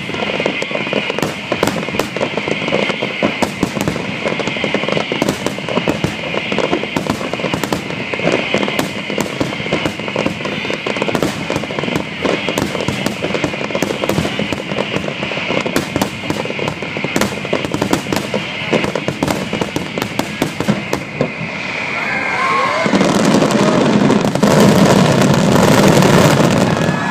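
A fireworks finale barrage: many aerial shells bursting in rapid, overlapping bangs with crackling. About 22 s in, it swells into a louder, continuous roar of crackling bursts.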